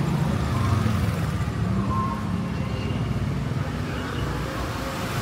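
Small motor scooter engines running as scooters ride past close by one after another in a narrow alley, a low engine hum that shifts in pitch as they pass.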